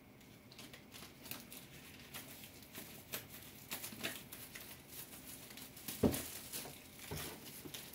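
Apple Watch box packaging being handled and unwrapped: crinkling and rustling with many light taps and clicks, and a soft thump about six seconds in.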